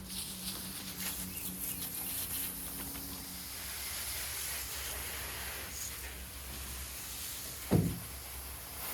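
Hose nozzle spraying water into a Trane heat pump's outdoor unit to wash it out: a steady hiss that starts abruptly. A short thump a little before the end.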